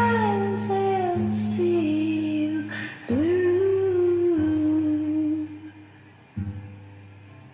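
Background music: a wordless sung melody gliding over held low notes, fading away after about five seconds, then a quieter low note near the end.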